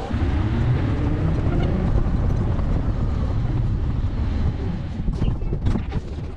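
Metro train running: a steady low rumble with a few faint clicks near the end.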